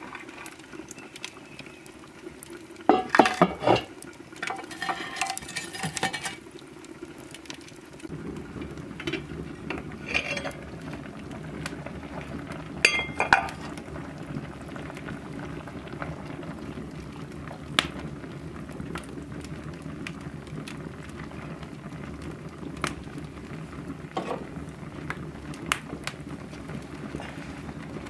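Metal cookware clanking and clinking a few seconds in and again around halfway. From about a third of the way through, apricot jam bubbles steadily in a metal pot over an open wood fire, with scattered crackles and pops from the burning logs.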